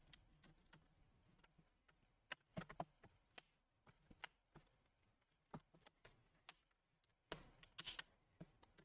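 Faint, sparse clicks and snaps of plastic as a laptop screen bezel is pried loose from its retaining clips, with a small cluster about two and a half seconds in and another near the end.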